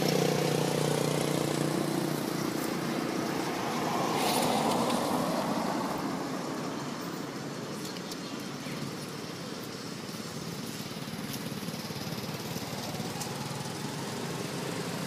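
An engine hums steadily for the first couple of seconds, then fades into a steady outdoor hiss, and the hum comes back near the end. A louder swell of noise comes about four seconds in.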